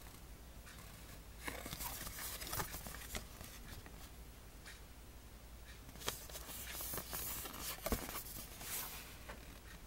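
Paper rustling and tapping as a folded paper instruction booklet is handled and unfolded, with scattered sharp clicks, the sharpest about eight seconds in.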